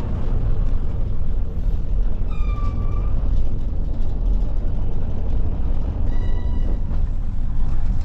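City bus running: a steady low engine and road rumble. Two short high tones sound over it, about two and a half and six seconds in.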